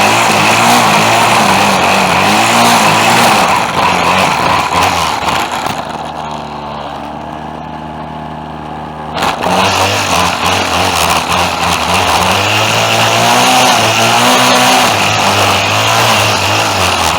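Small petrol engine of lawn equipment running loud under changing load, its pitch wavering; it drops to a quieter, steady note for about three seconds in the middle, then picks up again sharply.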